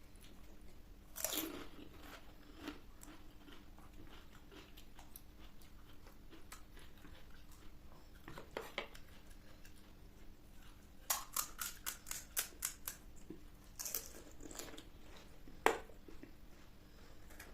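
Someone biting and chewing crisp panipuri shells, with scattered crunches, a quick run of about eight crunches partway through, and one sharp click near the end.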